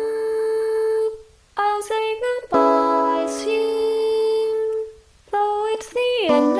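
Background music of long held, tone-rich notes with a few pitch slides, including a falling slide near the end, broken twice by brief pauses.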